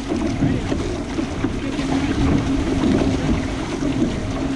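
Wind buffeting the microphone over water rushing past an outrigger canoe at sea, a dense, rough noise, with a steady low hum coming in about a second and a half in.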